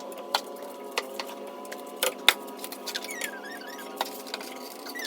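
Scattered sharp clicks and taps of metal tools and brake parts being handled, the loudest a little after two seconds in, over a steady humming drone.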